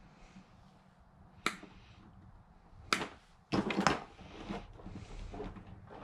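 Diagonal side cutters snipping harness wires: two sharp clicks about a second and a half apart. A louder clatter follows as the cutters are set down on the workbench among the loose wires.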